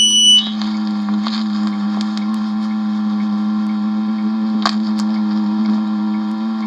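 A person humming one low note held steadily with a buzzy stack of overtones, picked up by a microphone pressed against the ear and run through an amplifier. A few faint clicks come through now and then.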